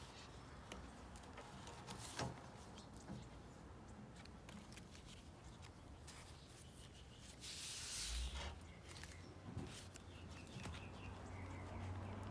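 Quiet paper handling as the layered pages of a handmade journal are turned: light rustles and small taps, with one brief louder rustle about eight seconds in.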